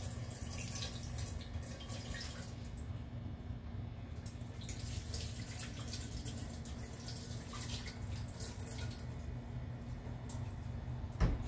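Kitchen tap running into a steel sink as a spoon is rinsed under it, the splashing coming and going in stretches over a steady low hum. A sharp knock sounds near the end.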